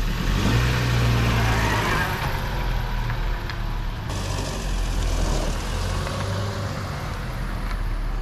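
MPV driving along the road: steady engine hum with tyre and road noise.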